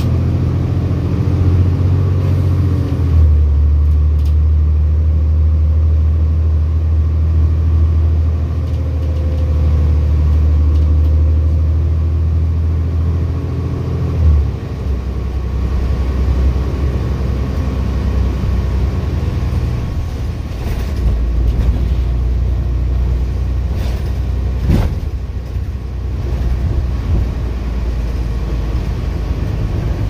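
Motor vehicle engine running with a steady low rumble, its pitch stepping down or up a few times, with a couple of brief knocks in the second half.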